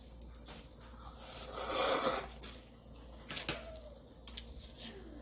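Instant noodles slurped off chopsticks in one airy slurp about two seconds in, with a few light clicks of the chopsticks against the plate.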